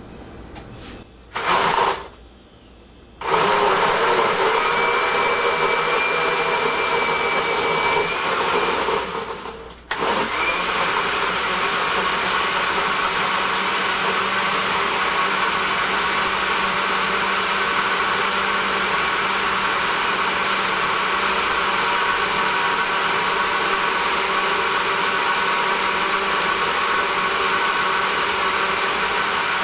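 Countertop blender crushing frozen strawberries and blueberries with yogurt and milk into a smoothie. It gives a short pulse, then runs steadily, cutting out briefly about ten seconds in before running on.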